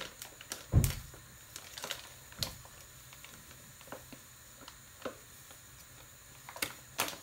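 Scattered light clicks and knocks of kitchen things being handled on a counter, with one louder thump about a second in and two quick clicks near the end.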